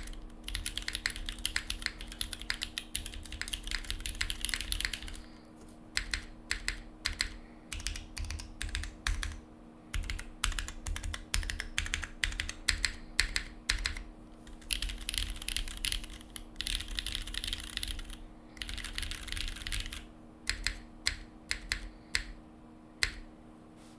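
Typing on a SingaKBD Kohaku r2 gasket-mount keyboard with a full aluminium plate, Cherry MX Hyperglide Black housings with Kailh Razer Orange stems, and GMK Panels keycaps. Fast continuous typing gives way about five seconds in to separate key presses with short pauses, and two more fast runs come in the middle.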